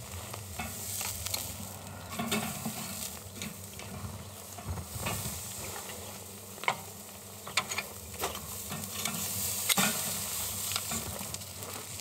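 Thick bone-in beef entrecôte sizzling on the hot grate of a kamado grill as it is turned with tongs. A few sharp clicks stand out in the second half.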